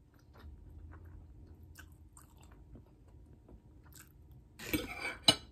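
Close-miked chewing of a shrimp taco: soft, wet mouth sounds, then a louder bite with a sharp click near the end.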